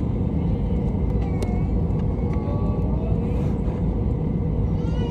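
Steady low rumble inside the cabin of an Airbus A320 on landing: engine and airflow noise heard from a passenger seat.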